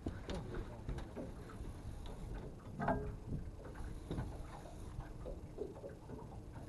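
Fishing reels and rod tackle clicking and ticking in an irregular run, one sharper click about three seconds in, over a low steady rumble of wind and water.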